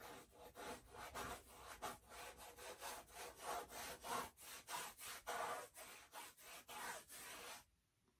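Paint being scrubbed onto a canvas in quick back-and-forth strokes, a dry rubbing scrape about three times a second, stopping near the end.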